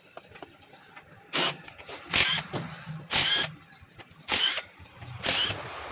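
Cordless drill-driver running the bolts of a motorcycle engine's crankcase in five short bursts, each under half a second and about a second apart, the motor whining briefly with each one.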